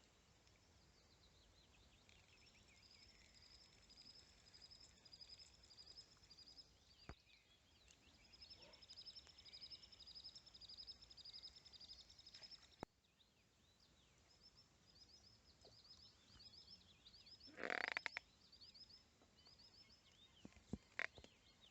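Quiet outdoor ambience with a small bird singing faintly: several runs of quick, high, repeated chirps. A brief, louder rustling noise comes about three quarters of the way through, with a few small clicks.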